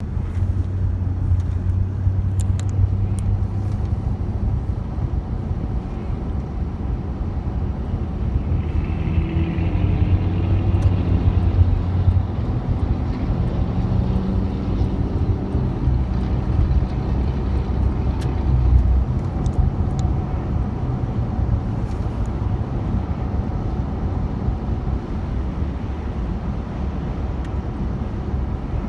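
Steady low rumble of a car driving on a wet road, heard from inside the cabin, with the engine note rising for a few seconds around the middle.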